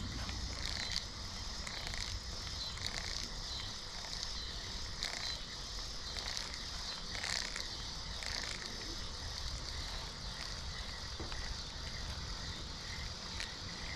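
Outdoor riverside ambience: a steady high-pitched insect chorus that pulses unevenly, over a low rumble.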